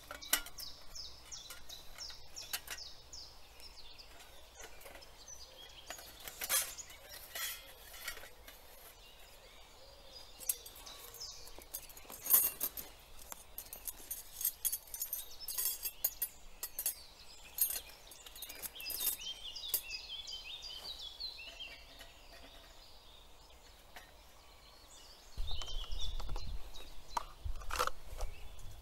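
Forest birds singing in short falling phrases, with scattered sharp clinks and clicks close by. A low rumble sets in near the end.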